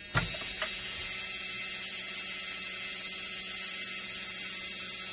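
A short click as the vehicle's power is switched on, then a steady high-pitched electrical whine with a low hum that holds at an even level.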